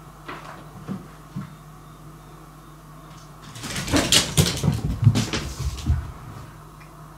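A few light taps, then a burst of rapid, irregular knocking and rattling thumps lasting about two seconds.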